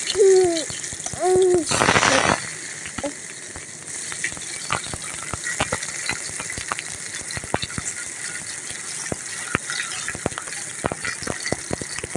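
Potato pieces going into hot oil in a kadai: a loud burst of sizzling about two seconds in, then steady frying with crackles and spits. Two short squeaks come just before the burst.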